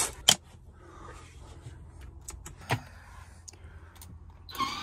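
A campervan window blind is drawn shut with a brief swish and clicks into place, followed by a few light handling clicks. Near the end, a MaxxAir roof vent fan starts up with a steady rushing hiss.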